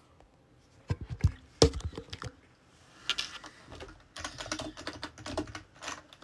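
Typing on a computer keyboard: a few scattered key clicks in the first two seconds, then rapid, continuous typing from about four seconds in.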